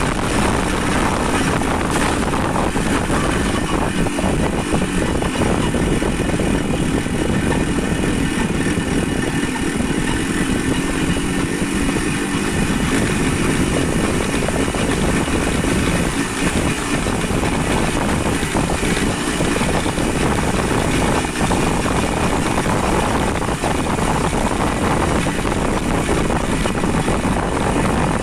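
Steady, unbroken noise of a vehicle on the move: an engine running under rushing wind and road noise.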